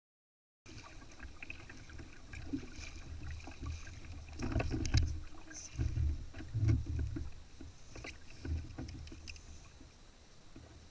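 Water slapping and sloshing against a plastic kayak hull on choppy water, with irregular low thumps and a few sharp knocks, picked up by a camera mounted on the kayak. It starts after a brief silence about a second in.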